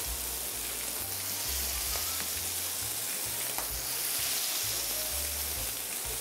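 Batter-coated onion rings deep-frying in hot oil, a steady sizzle that holds throughout.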